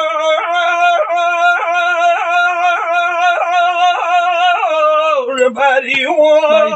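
A man's voice chanting one long, wavering held note with a soft pulse about every half second. Near the end the note dips in pitch and comes back up.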